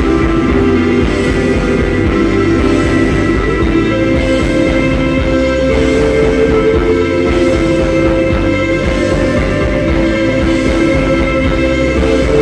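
Rock music with guitars, sustained held notes over a steady, dense low end.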